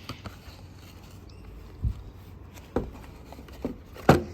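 Scattered knocks and clicks of kit items being handled and set down, a few in the second half, the loudest just after four seconds in.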